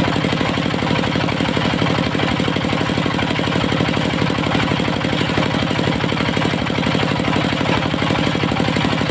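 Engine of a portable circular sawmill running steadily with a fast, even chugging pulse.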